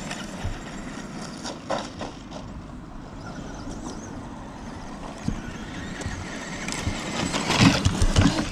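Electric RC trucks running over loose gravel, their tyres crunching and throwing up stones, with scattered clicks of gravel. It gets louder with a cluster of knocks near the end as the Traxxas Slash hits the homemade wooden ramp and launches into the air.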